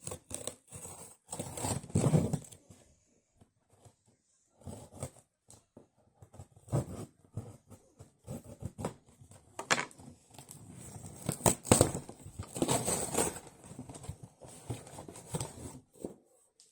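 A cardboard package being cut and torn open by hand, with irregular rustling, tearing and sharp knocks of the box and packaging.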